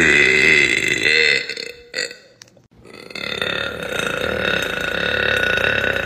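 A woman burping: one long burp over the first second and a half, a short one about two seconds in, then a second long, drawn-out burp starting about three seconds in.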